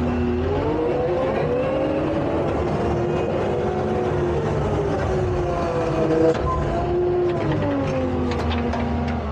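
A vehicle engine running, its pitch slowly rising and falling over several seconds as the revs change.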